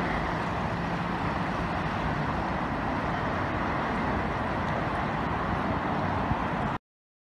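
Steady rushing of the River Nene in flood, pouring high through the stone bridge's arches, mixed with the low hum of road traffic. The sound cuts off suddenly near the end.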